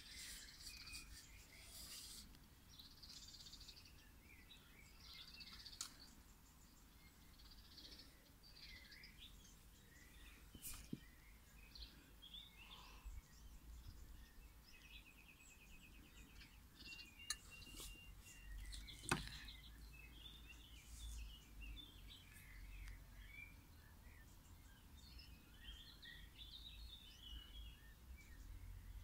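Faint bird chirps and twitters scattered throughout, with a short rapid trill in the middle. A few sharp clicks stand out, the loudest about two-thirds of the way through.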